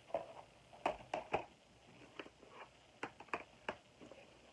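Plastic DVD cases clacking and knocking against each other as a stack of them is handled and shuffled: a string of short, sharp, irregular clicks.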